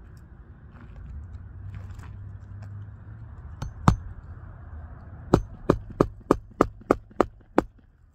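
Hammer blows on an asphalt shingle roof during a shingle repair: two strikes, then a steady run of about eight strikes, roughly three a second.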